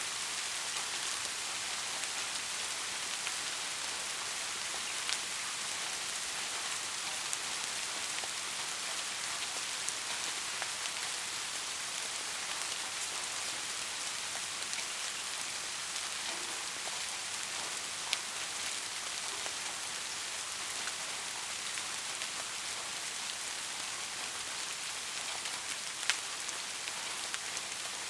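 Steady heavy rain, an even hiss with now and then a single louder drop tick. No thunder is heard.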